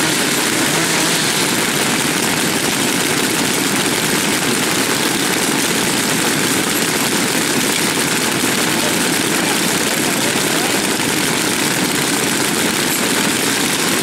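Many Dolmar 166 two-stroke chainsaws idling at once, blending into one steady, loud engine drone.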